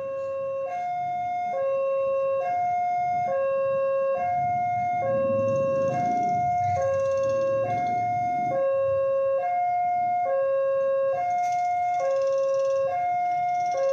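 Railway level-crossing alarm sounding a two-tone ding-dong: a high and a low tone alternating, each held a little under a second, growing louder over the first two seconds and then steady. It is the warning that a train is approaching the crossing.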